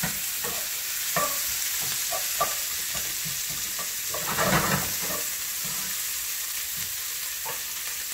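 Vegetables sautéing in hot oil in a pot: a steady sizzle, with a utensil scraping and tapping against the pot now and then. A louder swell of sizzling comes about halfway through.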